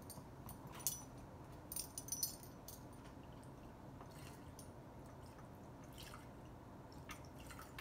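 Bourbon being measured out of a small 50 mL bottle by the tablespoon and tipped into a cup, with a few light clinks and drips.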